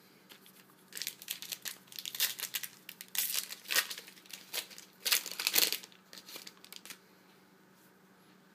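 Foil trading-card pack wrapper being torn open and crinkled by hand: a quick run of crackling rips starting about a second in, loudest in the middle, stopping shortly before the end.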